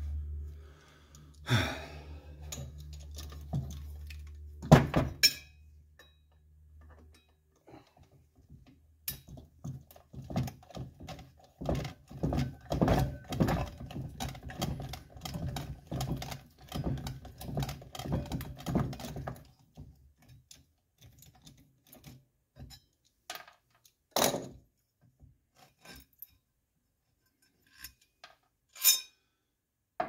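Metal tool knocks and clatter from dismantling an old air-compressor motor with a screwdriver. A run of quick knocks and scrapes lasts about ten seconds in the middle, with a few louder single clanks before and after.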